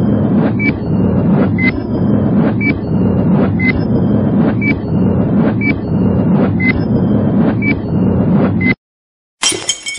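Countdown intro sound effect: a short high beep with a click about once a second over a steady low rumble, cutting off suddenly just before the end. After a short gap comes a bright, glassy chiming hit.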